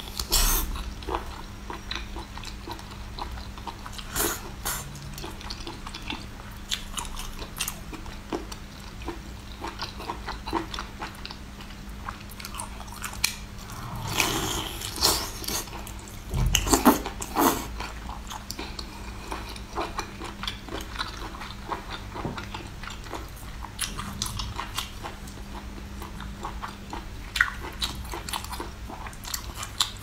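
Close-miked chewing and biting of cooked octopus, with wet smacking mouth sounds and scattered clicks, busiest about halfway through.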